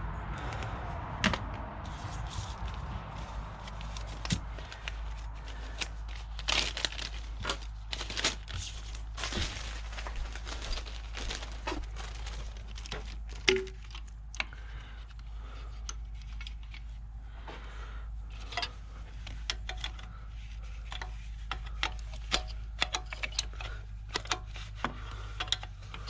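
Scattered metallic clicks and clinks of wrenches on metal while a bolt on the Sprinter's fuel rail is worked loose, over a low steady hum. A brief plastic-bag rustle comes at the start.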